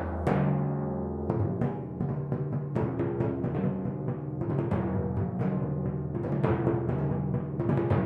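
Solo timpani, four copper-kettle drums struck with mallets: a single stroke rings for about a second, then a run of quick strokes moves between drums at several different pitches.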